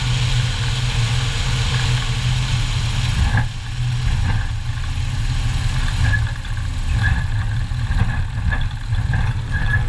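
Legend Cub light aircraft's engine and propeller running at low power on the ground: a steady low throb, with a high hiss that falls away about three and a half seconds in.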